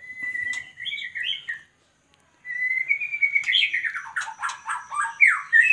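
White-rumped shama (murai batu) calling. It gives a held whistle followed by a few short notes, then after a brief pause a longer run of quick falling notes.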